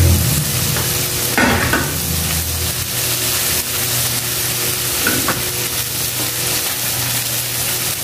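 Egg and vegetables sizzling steadily in a frying pan, with a wooden spatula stirring them and scraping the pan about a second and a half in and again after five seconds.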